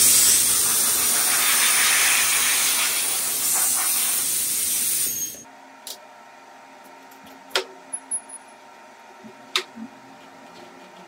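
Compressed air gun blowing a loud, steady hiss for about five seconds, clearing chips and dust off the machined board, then cutting off suddenly. After it come a few sharp clicks and knocks as T-track hold-down clamps are handled.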